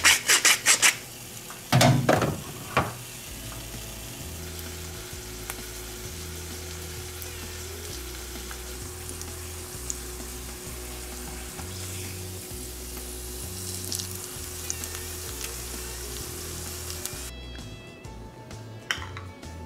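Thick-cut pork-belly bacon sizzling steadily as it fries in a stainless steel pan, the sizzle stopping near the end. A pepper mill grinds briefly at the start, and soft background music with a bass line runs underneath.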